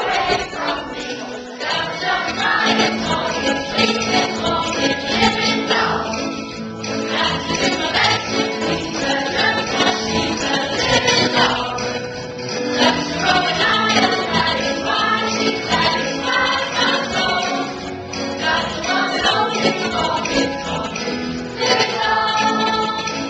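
A stage cast of men and women singing together in chorus with musical accompaniment, during a song-and-dance number.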